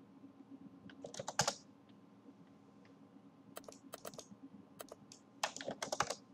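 Computer keyboard typing in several short bursts of clicks, as dimension values are keyed in.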